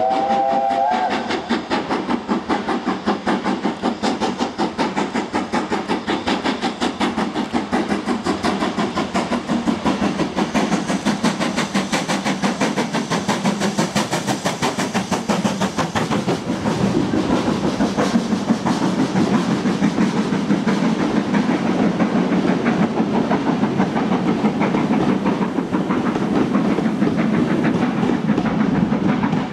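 Two steam locomotives, BR Standard Class 5 4-6-0 No. 73082 'Camelot' and GWR Modified Hall 4-6-0 No. 6989 'Wightwick Hall', starting away together under power, their rapid exhaust beats overlapping. A brief steam whistle sounds in the first second, and the sound grows fuller and lower after about 17 s as the trains come through.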